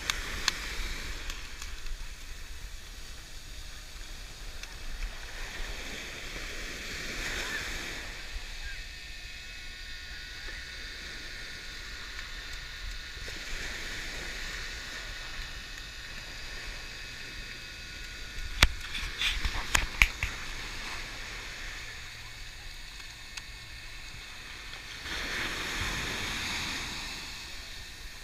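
Small surf waves washing up on the sand, the wash swelling and fading every several seconds and loudest near the end. A few sharp knocks come about two-thirds of the way in.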